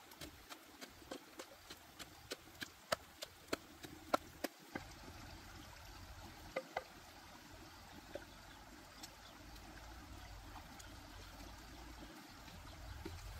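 A run of sharp clicks and pops, about two a second, that dies away after about five seconds, over a steady soft wash of a shallow stream flowing over rocks.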